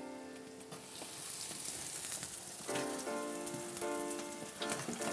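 Breaded beef fillet frying in a pan, its sizzle building and growing louder after the cutlet goes into the hot fat. A few soft background music notes sound over it.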